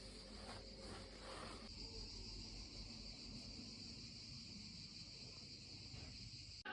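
Insects shrilling steadily, a faint constant high-pitched drone over quiet outdoor background noise.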